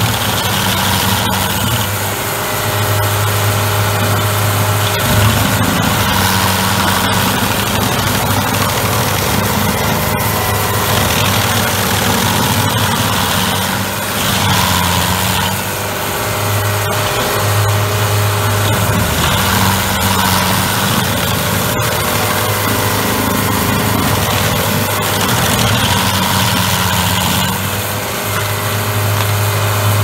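Stump grinder's engine running hard while its spinning cutter wheel grinds into a fir stump, the engine note shifting every few seconds as the wheel bites into the wood.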